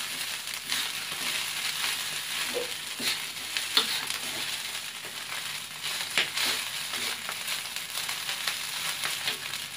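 Egg fried rice sizzling in a hot wok while a metal ladle stirs and turns it, with a few sharp scrapes and clinks of the ladle against the pan. The rice is nearly done.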